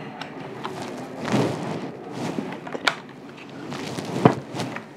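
Handling noise from a plastic head massager, switched off, being lifted and fitted onto the head: soft rustling and rubbing, with a sharp click about three seconds in and a louder knock a little after four seconds.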